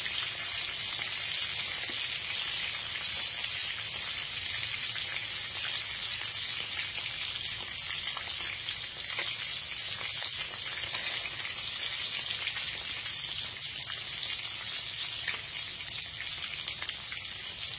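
Liwalo frying in hot oil in an aluminium wok: a steady sizzle with fine crackling.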